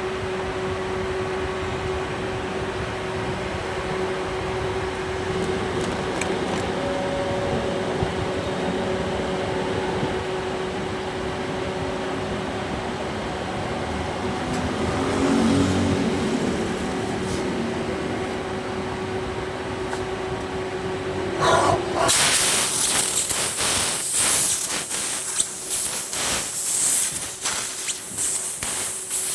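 CNC cutting machine on 1.5 mm type 201 stainless steel plate: a steady hum with a constant tone, then about 21 seconds in a loud hissing with crackling starts as the cutting begins.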